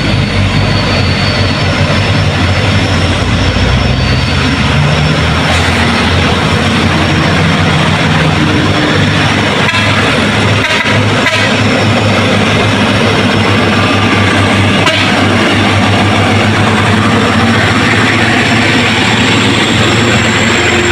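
Truck engine running at a steady pitch, a low even hum under a constant rushing noise.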